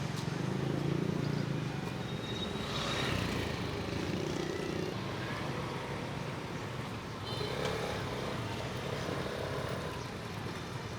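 A motor vehicle's engine running steadily with a low hum, a little louder in the first couple of seconds.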